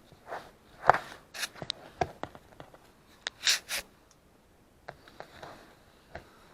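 Butter, brown sugar and cinnamon being stirred by hand in a bowl: a utensil scrapes and rubs through the thick filling in irregular strokes, with a few sharp knocks against the bowl.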